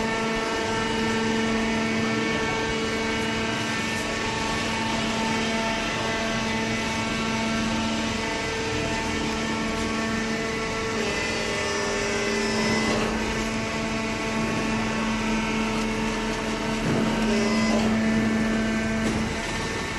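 Hydraulic cardboard baler running: its motor and hydraulic pump give a steady hum with a clear tone, which dips slightly in pitch partway through.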